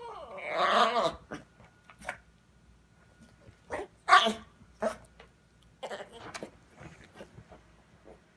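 A dog vocalising: one drawn-out pitched sound that bends in pitch for about a second at the start, then a string of short sharp sounds, the loudest about four seconds in.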